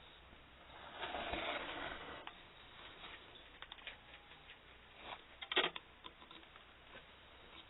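Hands handling a plastic emergency lamp. There is a brushing, scraping rustle about a second in, then a run of small clicks, with a sharper double click past the middle.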